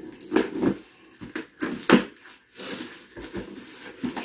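A small cardboard box being handled and opened by hand: a few sharp cardboard crackles and taps in the first two seconds, then softer rustling of the packaging.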